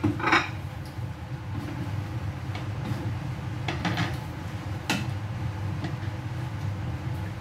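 Kitchen background: a steady low hum with a few short, light knocks and clatters scattered through it.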